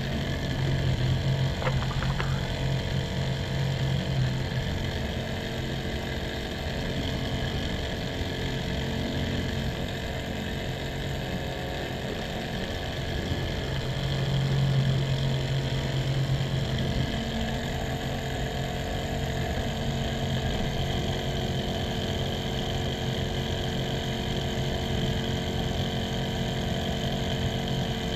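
Homemade RC model tractor running, its motor and gearing driving the PTO rotavator, whose rotor spins: a steady mechanical whine of several tones that grows a little louder about halfway through.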